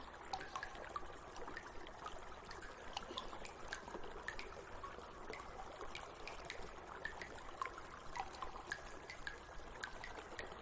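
Shallow water trickling and burbling, with many small quick plinks and drips scattered through a soft, even rush.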